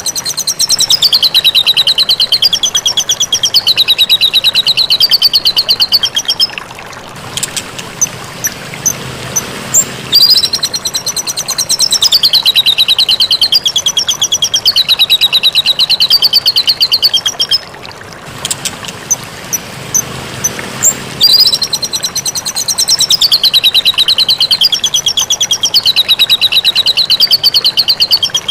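White-rumped shama (murai batu) singing: three long, rapid trills, each about six seconds, wavering up and down in pitch, with short sharp chips in the pauses between them.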